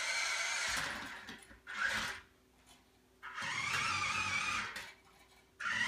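Toy remote-control monster truck's small electric motor and gears whining as it is driven in stop-start spurts: about a second and a half of whine, a short blip, a pause, another run of about a second and a half, and a new one starting near the end.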